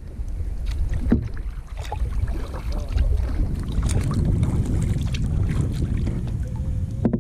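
Kayak on open water, with heavy wind rumbling on the microphone and scattered splashes and knocks from the paddle and hull.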